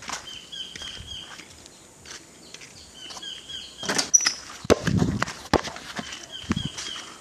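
A basketball knocks against a wooden-plank backboard about four seconds in, then a dull thud follows about a second later, as from the ball landing on packed dirt. Short runs of three or four bird chirps repeat throughout, with scattered knocks from the handheld phone.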